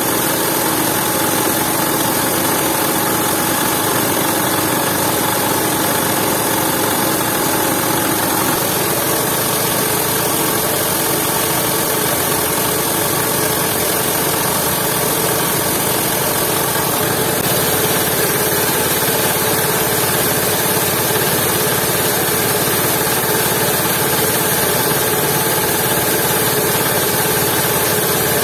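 8 hp Jiangdong single-cylinder diesel engine running steadily, driving a belt-driven coffee huller; its tone shifts slightly about a third of the way in and again past halfway.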